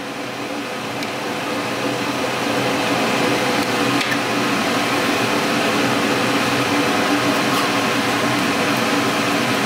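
Steady electric motor hum with a low buzz from the airbrush painting setup, growing louder over the first few seconds and then holding level.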